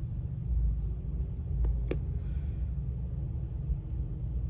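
Steady low background rumble, with a single light click about two seconds in.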